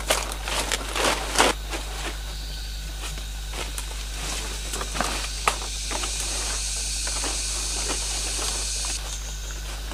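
Banana leaves and dry leaf litter rustling and crackling as they are handled and laid on the forest floor, with a cluster of crackles in the first two seconds and a few more around five seconds in. A high, even hiss sounds from about six to nine seconds in.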